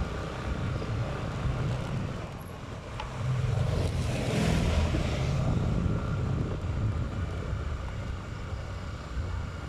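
Moving road vehicle: steady low engine and road rumble with wind on the microphone. It swells louder, with a rushing hiss, between about three and six seconds in.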